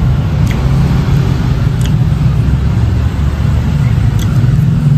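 Steady low mechanical hum of a running engine, with a few faint clicks over it.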